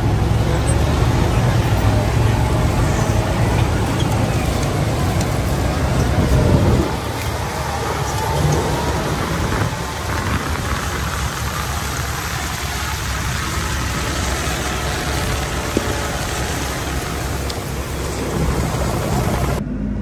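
Claas Xerion tractor's diesel engine running close by with a low, steady drone under a continuous rushing noise, easing off about seven seconds in. Just before the end the sound switches abruptly to the quieter, duller noise inside a tractor cab.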